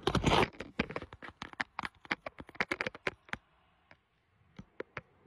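A short rustle, then a quick run of sharp clicks and taps that stops about three seconds in, followed after a pause by three single clicks near the end.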